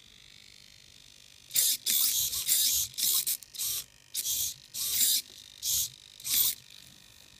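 Hobby servo motors in an animatronic robot head whirring through their gears in about ten short bursts, each a fraction of a second, as the joystick drives the head's movements.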